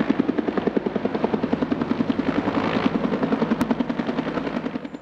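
Bell UH-1H Huey helicopter in flight, its two-bladed main rotor beating steadily at about ten beats a second, fading out near the end.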